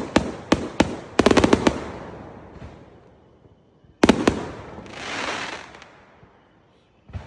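Fireworks going off: a quick string of sharp cracks in the first two seconds, then a few sharp bangs at about four seconds followed by a swelling hiss, and a dull thump near the end.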